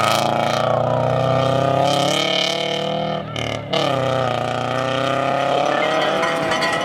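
Rally car engine running hard on a snow stage. Its pitch sags slightly, then there is a brief lift about three seconds in, and it comes back on at a steady, slightly rising note.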